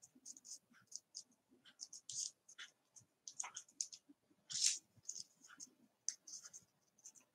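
Small scissors snipping paper: an irregular run of short, quiet snips, the loudest about halfway through.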